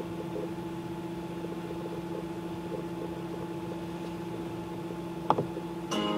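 Steady electrical hum with faint hiss, a single click about five seconds in, then acoustic guitar music starts just before the end.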